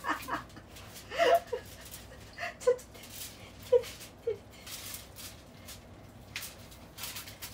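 Several short, pitched whimper-like vocal sounds, spaced out over a few seconds, with a few light clicks in between.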